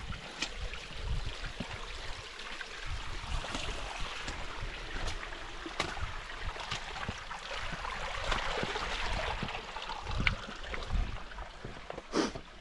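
Creek water running over rocks in a steady wash, with scattered clicks and knocks and uneven low rumbles.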